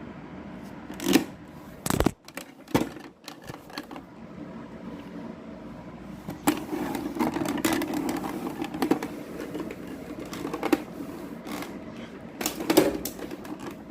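A 2006 Hanil electric fan running with a steady hum, with sharp clicks and knocks over it: several in the first three seconds, then a few more scattered through the rest.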